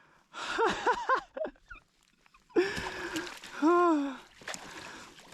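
A man's wordless, breathless vocal outbursts: three quick cries in a row, then a pause, then a longer held cry and another rising-and-falling one, the overwhelmed reaction of an angler who has just landed a long-sought fish.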